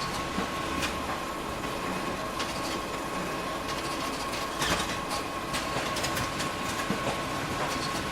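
Photocopier running in booklet-making mode: a steady mechanical whir with a thin constant whine and irregular clicks and clacks from the paper handling, the loudest clack a little past the middle.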